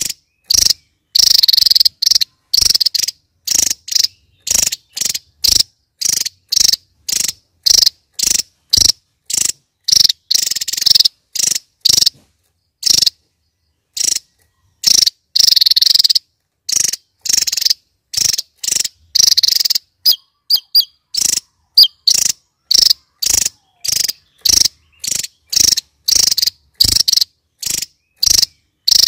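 Javan tesia singing: a fast string of short, high-pitched phrases, about two a second, breaking off briefly about halfway through.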